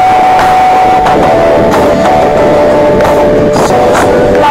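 Live pop-rock band music played very loud in an arena, heard from the crowd: a long held melody note that steps slowly down in pitch, over drum beats landing about every two-thirds of a second.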